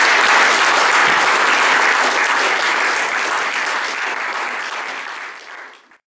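Audience applauding, fading out over the last two seconds and cutting off just before the end.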